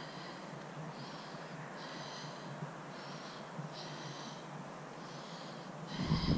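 A short, high-pitched electronic beep repeating about once a second, each about half a second long, over a steady background hiss; a low rumble comes in near the end.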